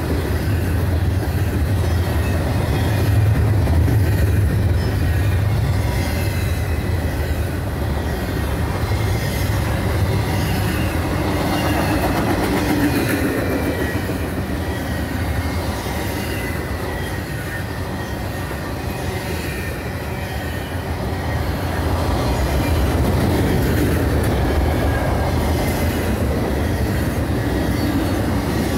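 Double-stack intermodal freight cars rolling past: a steady low rumble of steel wheels on rail that swells and eases a few times, with a faint, wavering high-pitched wheel squeal above it.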